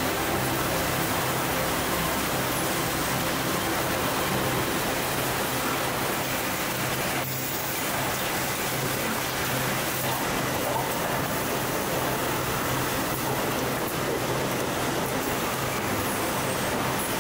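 Steady hum and hiss of running packaging-line machinery and conveyor belts, with a brief dip about seven seconds in.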